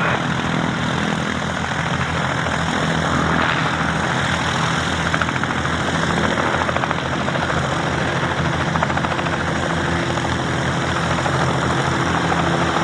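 Robinson R44 helicopter running steadily, its piston engine and two-blade main rotor giving a continuous drone with a fast, even rotor beat.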